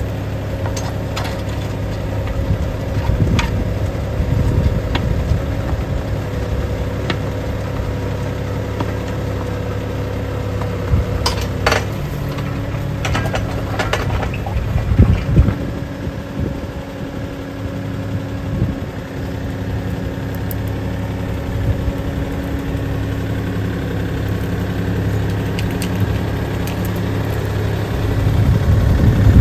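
Kioti NX5510 compact tractor's diesel engine running steadily while it turns a three-point post-hole auger, with a few sharp clanks about halfway through.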